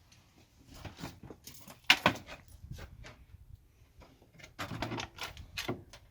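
A run of irregular knocks and clatter as hard objects are handled and moved about, with the loudest knock about two seconds in and another flurry near the five-second mark.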